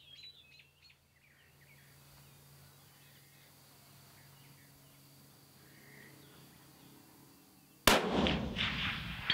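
Single shot from an M24 bolt-action sniper rifle in 7.62×51mm NATO, about eight seconds in after several seconds of quiet: a sharp crack followed by an echo that dies away over the next second or so.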